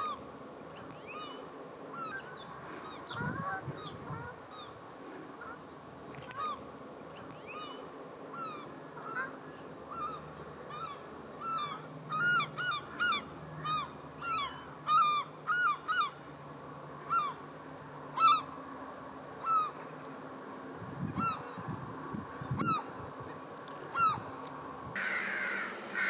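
A flock of estuary waterbirds calling: many short, honking calls, overlapping and coming thickest in the middle.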